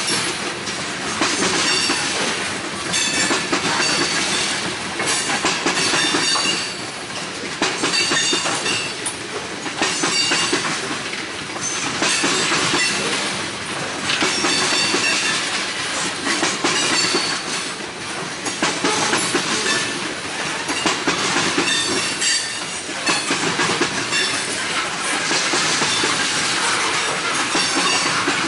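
Railcars of a passing train rolling by, wheels clattering over the rail joints in a steady repeating rhythm, with thin high-pitched wheel squeal coming and going.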